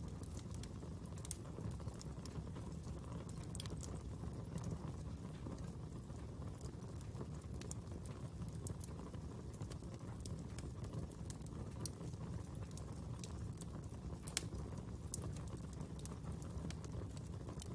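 Fire burning with a steady low rumble and irregular sharp crackles and pops, one louder pop about fourteen seconds in.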